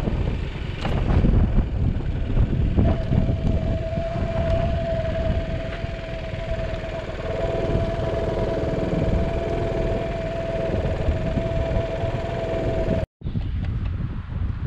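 Sport motorcycle engine running at low speed with wind buffeting the microphone, a steady low rumble. A single steady whining tone comes in about three seconds in and holds until a short dropout near the end.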